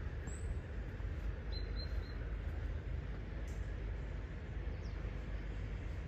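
Outdoor garden ambience: a steady low rumble with a short group of high bird chirps about one and a half to two seconds in.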